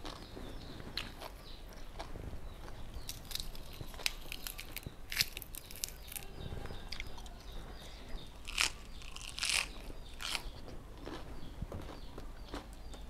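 A person chewing a mouthful of papaya salad and raw vegetables close to a clip-on microphone, with irregular crisp crunches, the loudest about five, eight and a half and ten seconds in.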